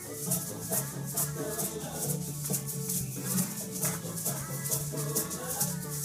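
Hand shakers rattled in a steady rhythm along with recorded music that has a bass line and held notes.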